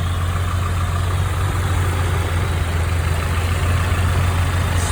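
1995 Nissan truck's 2.4-litre four-cylinder engine idling steadily and smoothly, with no lifter tapping or knock to be heard: the lifter noise has been quieted by an oil additive.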